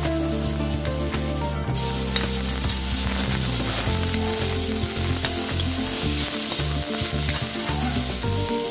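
Julienned carrots, snow peas and shallots sizzling in a hot wok as a spatula stirs and tosses them, with scattered light clicks of the spatula against the pan.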